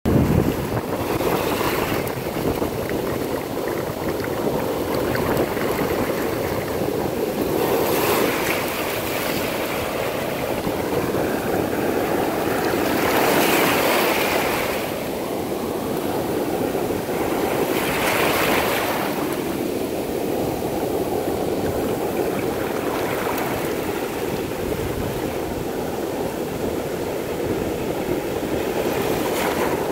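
Ocean surf breaking on a beach: a continuous wash of foaming water, with louder crashes of breaking waves swelling up several times, every few seconds.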